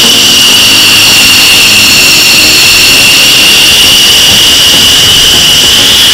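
F-15 Eagle's twin turbofan engines at taxi power, a loud steady high-pitched turbine whine over a rushing exhaust noise.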